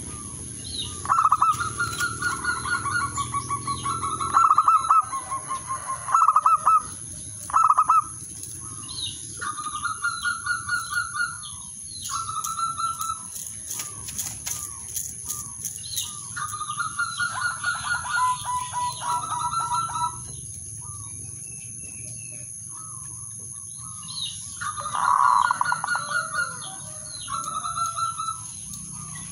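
Male zebra dove (perkutut) cooing: repeated phrases of rapid, trilling coo notes, with a pause of a few seconds past the middle. About halfway through there is a short flutter of wings.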